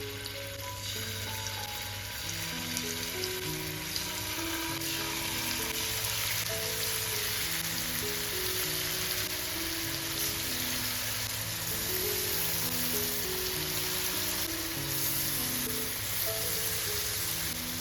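Marinated boneless chicken pieces sizzling as they shallow-fry in hot oil in a pan, with the sizzle growing denser about four seconds in. A slow instrumental melody plays underneath.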